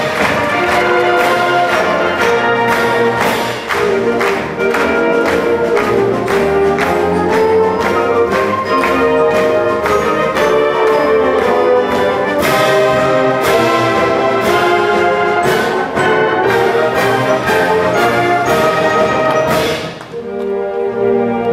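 Concert band playing: brass carries held notes and melody over regular percussion strikes. About 20 s in, the percussion stops and the band moves into softer sustained brass chords.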